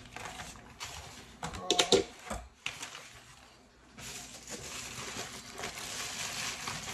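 A package being handled and opened: a few clicks and knocks, the loudest about two seconds in, then after a short lull a steady rustling of paper packaging from about four seconds in.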